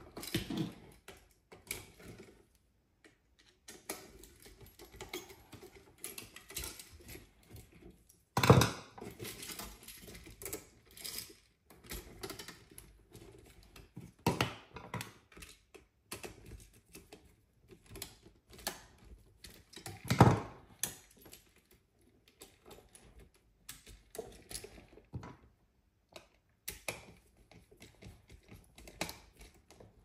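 Irregular small clicks, taps and scrapes of a hand screwdriver tightening the terminal screws on a GFCI outlet as the wires are worked into it. Two louder thumps stand out, one about eight seconds in and one about twenty seconds in.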